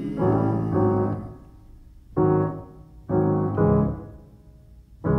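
Piano playing the blues without singing: about six chords with deep bass notes, struck in uneven groups, each left to ring and fade before the next.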